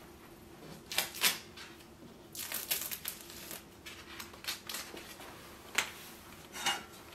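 Blue painter's tape being peeled off a wall and crumpled in the hand: several short rips and crinkles, with a longer crinkling stretch about two and a half seconds in.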